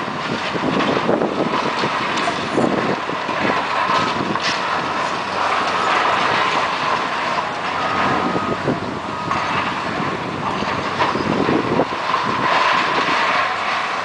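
Demolition excavators tearing down a stadium's structure: engines running under a continuous clatter of crashing, crunching debris, with a few short high squeals.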